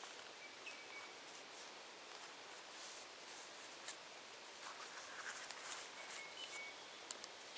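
Quiet bush ambience: a faint steady hiss with small scratchy rustles close by, two short faint high bird calls, and a few sharp ticks near the end.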